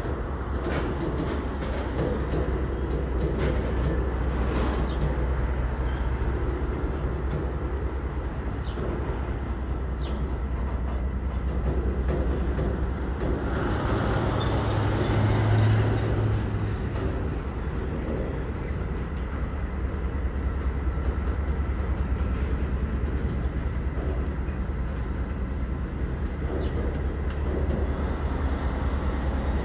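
Freight train cars rolling past on the rails, a steady rumble with the clicking of wheels over rail joints; a louder hum swells briefly about halfway through.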